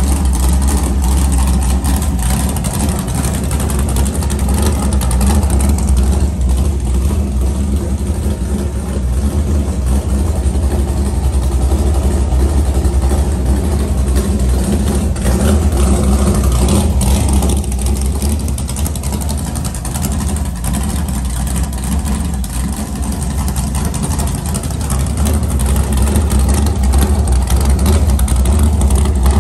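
LS V8 engine in a jet boat running on its trailer through open zoomie headers, a loud steady idle that swells and eases a little.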